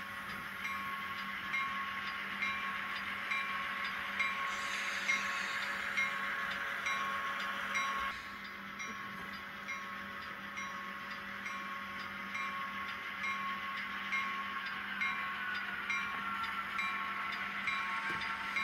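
Diesel locomotive sound from an ESU LokSound V5 micro decoder in a Kato N scale F7A, playing through a tiny 11x17 sugar cube speaker while the model runs. The engine sound is steady and thin, with little bass, and has a light tick about once a second.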